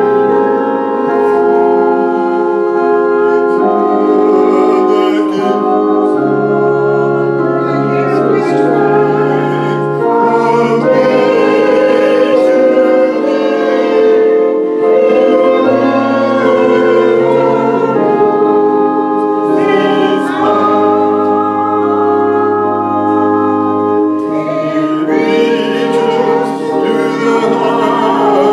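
Choir or congregation singing a hymn with organ accompaniment, in long held chords.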